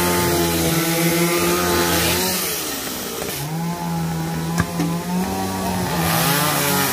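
Several gasoline chainsaws running at once, one revved to full throttle while cutting. Its pitch drops as the throttle is released about two and a half seconds in, revs back up about a second later and holds, then eases off again near the end.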